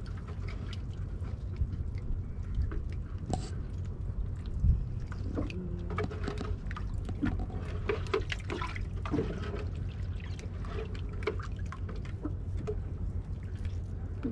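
Water trickling and dripping, with scattered small splashes and knocks, as a wet nylon fishing net is hauled over the side into a small boat. A steady low rumble runs underneath, and a louder thump comes about four and a half seconds in.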